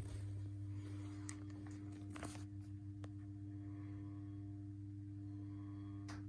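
Brilliant Lighting light fitting making a steady low hum, with a weaker higher tone over it: a faulty, noisy fitting that adjusting the shade does not quieten. A few short clicks and rustles sound over it, the largest about two seconds in.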